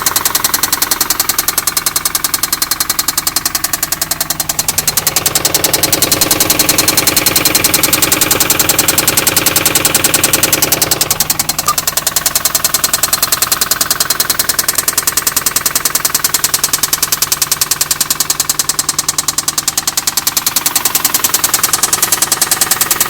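A 2004 Infiniti G35's 3.5-litre V6 running with a fast, steady, rhythmic knock. A stretch in the middle of about six seconds sounds fuller. The engine developed a lifter tick, and the shop found extensive metal shavings in the oil, pointing to internal wear.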